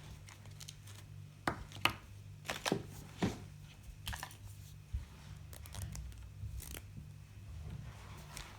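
Hands opening and handling plastic toy packaging: an irregular string of sharp clicks and short tearing or crinkling rasps, loudest in the first half, over a faint steady hum.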